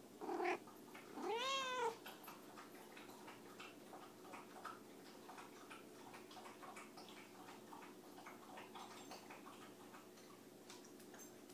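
Domestic cat meowing twice: a short meow, then a longer one that rises and falls in pitch. Faint scattered clicks follow.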